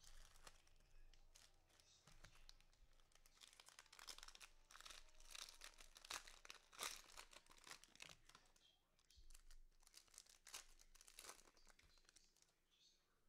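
Faint, irregular crinkling and tearing of the cellophane wrapper of a 2020 Panini Mosaic football cello pack as it is ripped open and peeled off the stack of cards.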